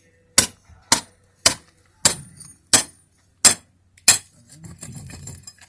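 Seven sharp hammer blows with a clinking ring, about one every two-thirds of a second, knocking loose a sawn piece of concrete.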